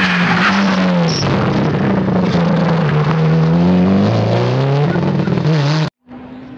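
Rally car engine revving hard as the car passes at speed, its pitch climbing and dropping several times through gear changes. The sound cuts off abruptly near the end and gives way to a quieter, steady engine note.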